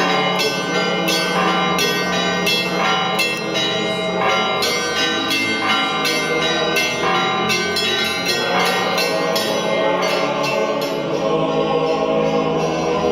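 Church bells ringing in quick, uneven strikes of several pitches, each left to ring on; about ten seconds in the strikes thin out and a choir chant comes in.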